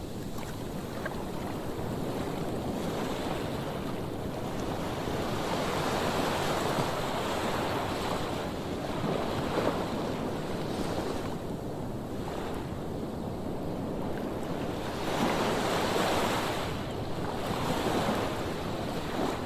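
Waves washing in with wind: a steady rush of water noise that swells and eases every few seconds.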